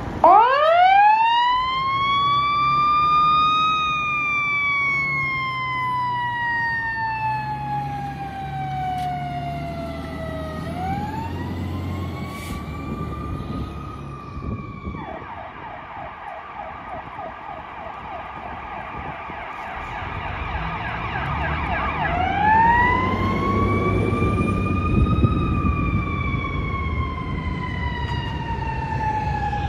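Fire engine's mechanical siren winding up to a high wail and slowly coasting down, wound up again a few times, with a fast electronic yelp through the middle stretch. The truck's diesel engine runs low underneath as it responds to a call.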